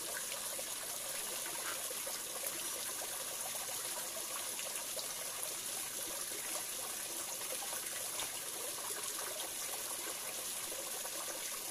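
Stream water trickling over a rock ledge and splashing steadily into a pool.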